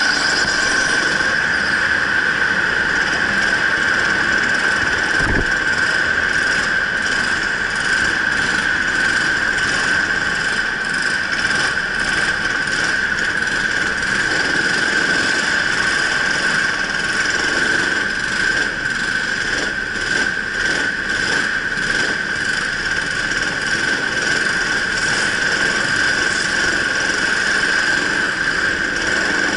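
Indoor racing go-kart running at speed on track, with a steady high-pitched whine held throughout.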